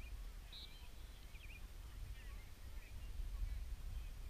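Wind rumbling on the microphone over an open field, with faint, short, high-pitched calls in the distance now and then.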